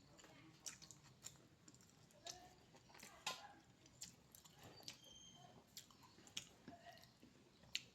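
Quiet, close-miked chewing of a mouthful of food, with irregular soft wet clicks from the mouth.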